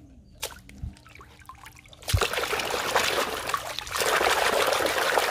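Water splashing and sloshing in a metal basin as a muddy toy pistol is scrubbed clean by hand. After a few faint drips, the splashing starts about two seconds in and grows louder near the end.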